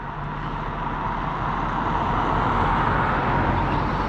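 A road vehicle passing by: a tyre-and-engine rush that swells to a peak about three seconds in and then fades, over a steady low hum.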